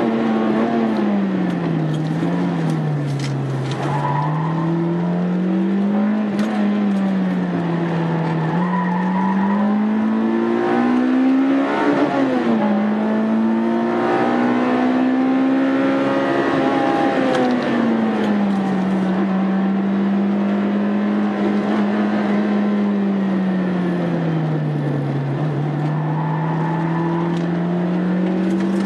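Honda Integra Type R's four-cylinder engine running under load on track, its revs sweeping slowly up and down several times and holding fairly steady for a few seconds past the middle.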